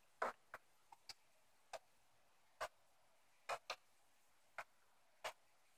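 Faint, sharp clicks at irregular intervals, about ten over a few seconds, against near silence.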